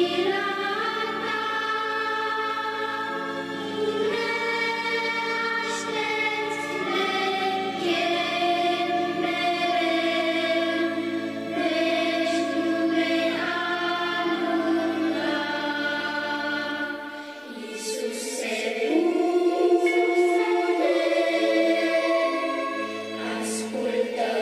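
Choir singing a slow Romanian hymn, the voices holding long notes in changing chords. About two-thirds of the way through, the low voices drop out and the singing grows louder.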